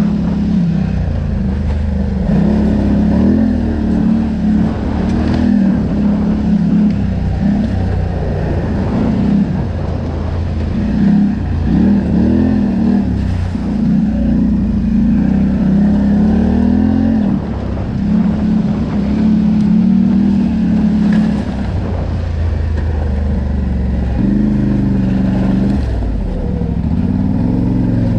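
ATV engine running as the quad is ridden, its pitch rising and falling again and again with the throttle.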